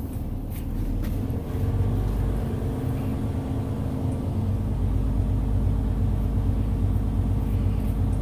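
Heavy truck's diesel engine running steadily, heard from inside the cab, while its air compressor builds brake air pressure toward the 120 psi governor cut-out. It gets a little louder about a second and a half in.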